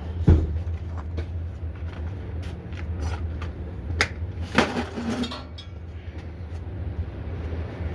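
Scrap metal clanking and knocking as pieces are handled, a few sharp strikes with ringing, over a steady low engine hum.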